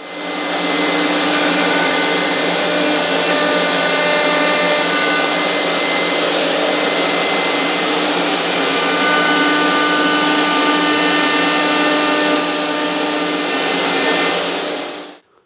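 Table-mounted router with a 6 mm cutter running at a steady high whine together with its dust extractor, routing a groove along a veneered MDF drawer front. It comes up to speed about half a second in and winds down just before the end.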